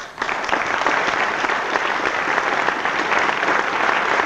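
Audience applauding. A few separate claps come just before, and within a fraction of a second it fills out into steady clapping from many hands.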